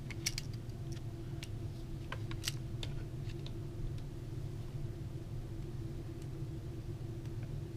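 Light clicks and taps of plastic PS4 controller parts being handled and fitted together, several in the first three seconds and a few later, over a steady low hum.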